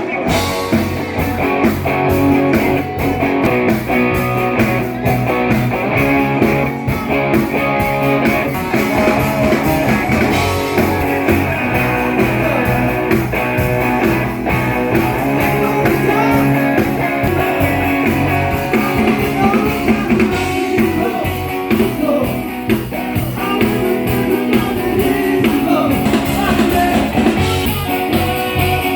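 Live rock band playing: electric guitars, bass and drum kit with singing, loud and steady.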